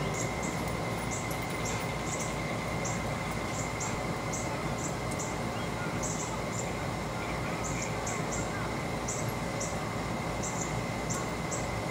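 Outdoor backyard ambience: a steady hiss with a low rumble, a faint steady high tone, and short high chirps repeating irregularly about twice a second.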